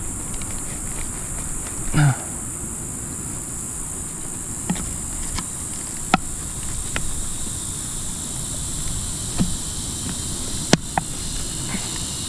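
Steady high-pitched insect chorus. A second, lower band of insects joins about halfway through. Scattered sharp clicks and snaps come from twigs and paper being handled while a campfire is built.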